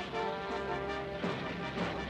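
Background documentary music: sustained held notes with a few sharp percussive hits in the second half.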